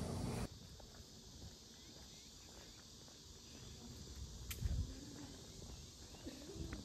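Quiet park ambience with faint, scattered chirping and soft footsteps on a paved path, and a single soft thump about four and a half seconds in. It follows half a second of louder indoor room sound at the very start.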